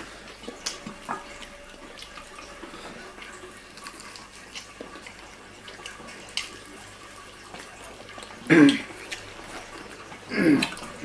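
Faint chewing, mouth noises and small clicks of people eating fried chicken, with two short vocal sounds, like a hum or a laugh, near the end.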